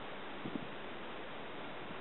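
Steady background hiss, with one short faint sound about half a second in.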